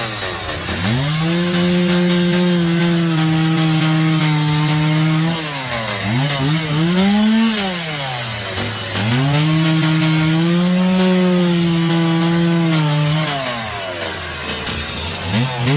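A motor-driven saw cutting wood. The motor's pitch climbs, holds steady under load for about four seconds, then falls away. This happens twice, with a brief rev between and another start near the end.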